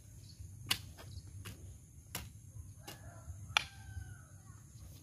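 Several sharp knocks spread through a few seconds over a low steady rumble, the loudest about three and a half seconds in.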